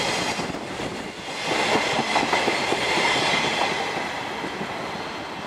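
Empty container flatcars of a freight train rolling past, wheels clacking over the rail joints with a faint steady ringing from the wheels. The sound fades toward the end as the last car moves away.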